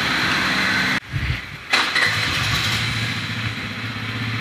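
A 125cc scooter engine starts about two seconds in and then idles steadily.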